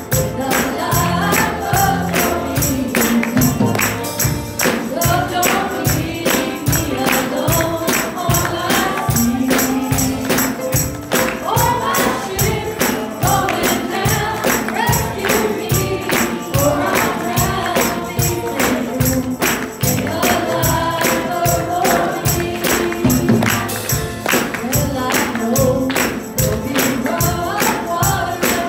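A woman singing a gospel song into a microphone over musical accompaniment with a steady beat.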